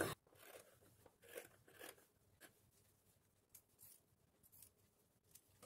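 A few faint, short snips of tailor's scissors cutting away excess blouse fabric, mostly in the first half.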